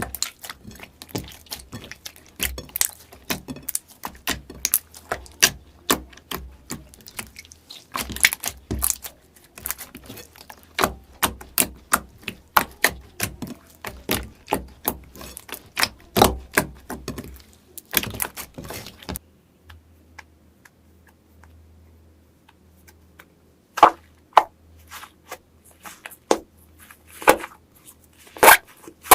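Slime being squeezed and kneaded by hand, making rapid, irregular clicking and popping sounds. It stops about two-thirds of the way in, and a few separate loud pops follow near the end.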